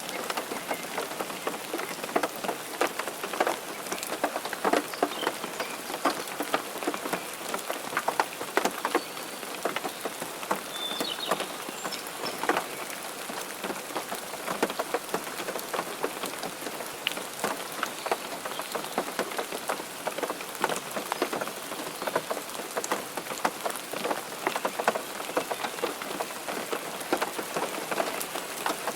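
Steady rain with many close, individual drops striking a surface, dense and irregular.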